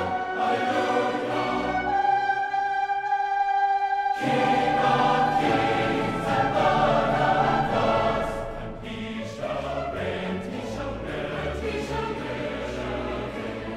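Choral music with orchestral accompaniment. Voices sing a long held chord that gives way to the fuller choir and orchestra about four seconds in.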